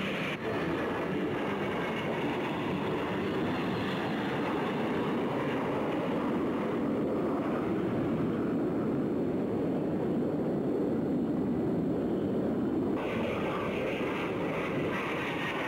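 Jet engines of the Red Arrows' Folland Gnat formation flying past in a display, a continuous rushing jet noise at an even level.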